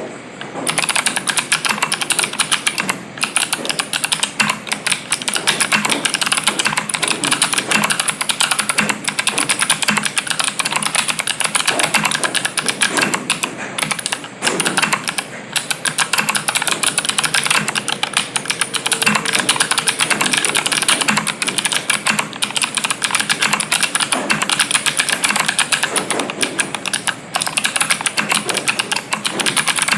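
Fast, continuous typing on an Ombrewok 65 mechanical keyboard with NovelKeys Sherbet linear switches, an acrylic plate, PBT Cherry-profile keycaps and no dampener. The keystrokes make a dense, even clatter that starts about half a second in, with a few short pauses.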